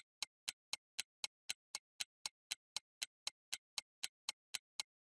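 Ticking clock sound effect, about four even ticks a second, counting down a five-second answer time.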